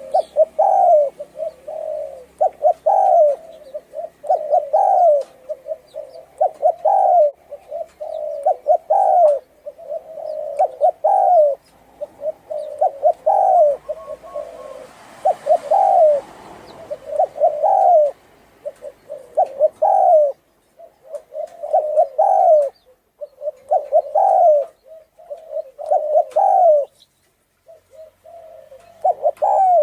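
Hoarse-voiced Thai spotted dove cooing over and over, about one coo phrase a second, with a couple of short pauses.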